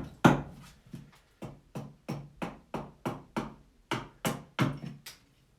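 An axe chopping wood, a quick, regular run of sharp knocks at about three a second, as wood is trimmed away from a cup blank.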